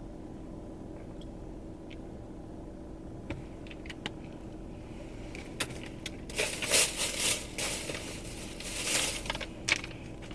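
Plastic shopping bag and packaging crinkling in bursts, starting about six seconds in, as items are rummaged out. Under it runs a steady low hum, with a few faint clicks earlier on.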